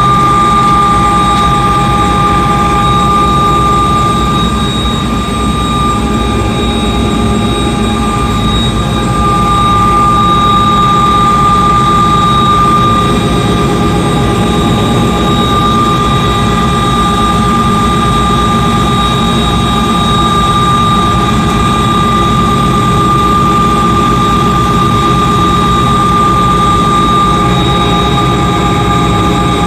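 Bell 206B JetRanger helicopter in steady flight: its Allison 250 turboshaft and rotors run at a constant, even level, with a steady high turbine and gearbox whine over the low rotor noise.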